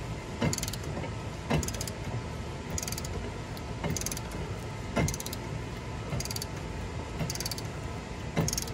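Hand-cranked brake caliper piston tool being ratcheted, about one stroke a second, each stroke a short run of quick clicks with a light metallic knock, as it pushes the caliper piston back into its bore.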